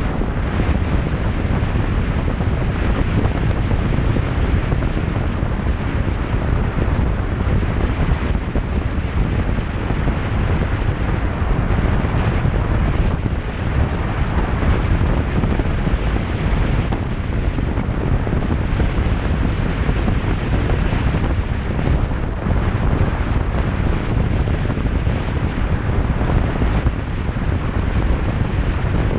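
Steady, heavy wind noise buffeting the microphone, as from a camera on a motorcycle riding at speed.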